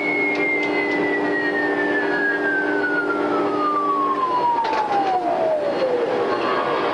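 A high whine falling smoothly and steadily in pitch over about six seconds, with a steady low hum beneath it that stops about four seconds in.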